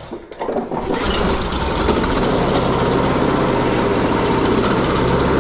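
Honda lawn mower's small four-stroke engine running steadily, with its carburetor freshly cleaned. It dips briefly in the first second, then runs evenly from about a second in.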